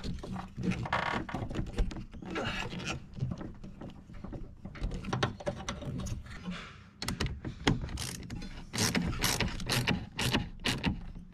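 Rubber hose being worked onto a fitting and handled, then a worm-drive hose clamp being tightened with a driver. The second half has a run of quick, sharp clicks and scrapes.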